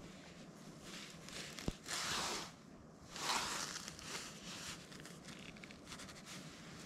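Close handling noise as hands tie a hook onto a fishing trace: a small click about two seconds in, then two brief rustling rushes.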